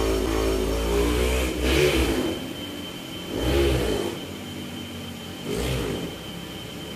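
A motor vehicle engine running and revving, its pitch rising and falling in three swells after a steadier first couple of seconds, over a steady high whine.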